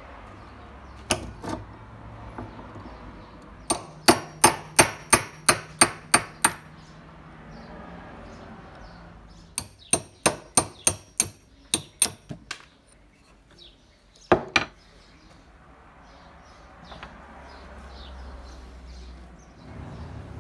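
Hammer tapping a steel pin punch to drive the pivot pin out of a rusty hand hole punch held in a vise. Sharp metallic taps come in two quick runs of about nine or ten each, about three a second, with a few single blows before and after.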